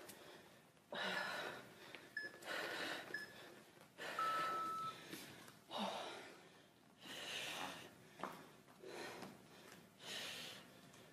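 A woman breathing hard from a bodyweight cardio exercise, with forceful exhales about every one and a half seconds.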